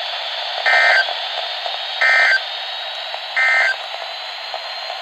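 Weather alert radio playing three short bursts of EAS SAME digital data tones, about a second and a half apart, over steady radio static with a faint high whistle.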